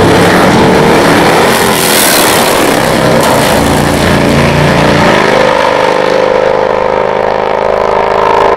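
Drag-racing motorcycles launching and running at full throttle down the strip, loud throughout. About five seconds in, the noise settles into a steadier high engine note as the bikes pull away.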